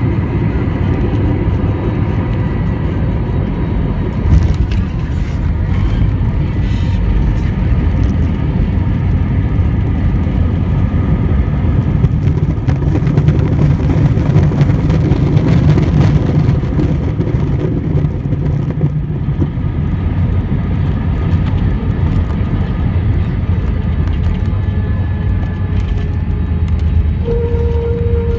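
Airliner cabin noise on landing: a loud, steady roar of engines and air. A sharp knock comes about four seconds in as the wheels touch down, then the rumble of the rollout along the runway, louder for several seconds in the middle.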